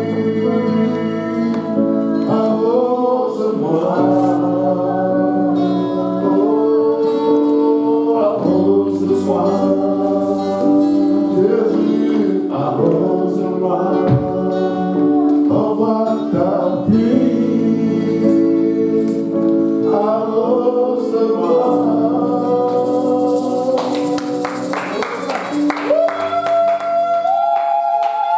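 Christian worship music: voices singing a slow melody over sustained instrumental accompaniment, with a high shimmering wash coming in near the end.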